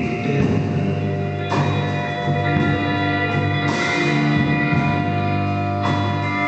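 A blues band playing, with guitar to the fore and the chords changing every two seconds or so.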